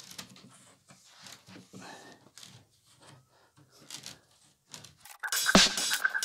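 Faint scuffing and rubbing as a loose sheet of particleboard flooring is handled and shifted by hand. About five seconds in, loud background music with a heavy beat cuts in.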